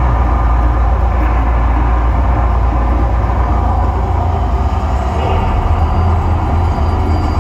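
Mirage's artificial volcano show erupting: a loud, deep, steady rumble as gas flames flare up from the top of the rock.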